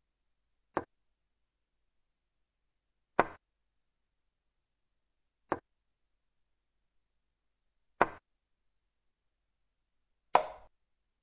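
A chess program's move sound effect: five short, sharp clicks of a piece being set down, about one every two and a half seconds, with dead silence between.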